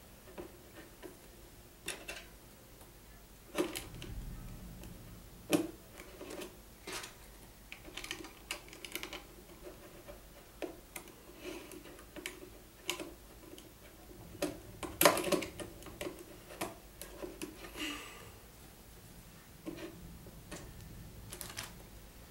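Irregular small plastic clicks and taps of Lego bricks being picked up and pressed together on a tabletop, with a louder flurry of clicks about fifteen seconds in.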